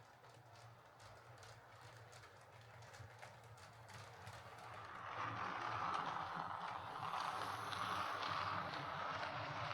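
Hornby OO gauge Stanier Class 4P model steam locomotive running on track: its motor and gears whir and its wheels click steadily over the rails. The sound gets louder from about halfway through. It is running smoothly with a new drive gear, free of the lurch caused by its earlier split drive gear.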